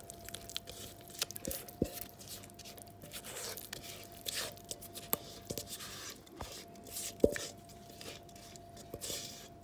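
Spatula scraping thick leek cornbread batter out of a metal bowl into a glass baking dish: wet scrapes and dollops with scattered clicks of the spatula against the bowl, the sharpest about seven seconds in. A faint steady hum lies underneath.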